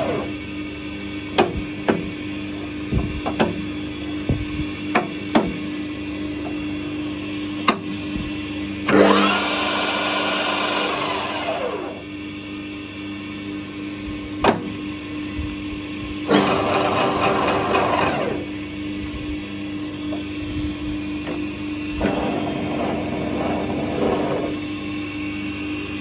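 Harrison L5A metal lathe with its motor humming steadily and sharp clicks of the headstock levers. Three times the spindle and headstock gears are driven and whirr, then wind down as the drive is released.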